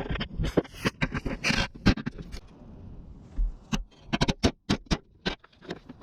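Irregular metal clicks, knocks and short scrapes of hand tools working on the bumper bracket bolts, with a quieter patch in the middle.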